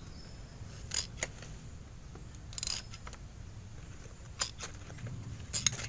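Hand pruning shears snipping leaves off an ixora cutting's stem: several short, sharp snips, spaced irregularly a second or more apart.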